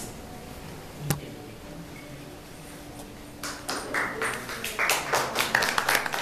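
A single sharp tap about a second in, then an audience starting to clap about three and a half seconds in, the applause growing denser and louder.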